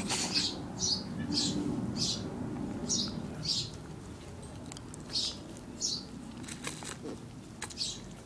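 A Shetland sheepdog licking a hard lollipop: a string of short, wet licking smacks, about two a second at first, then sparser.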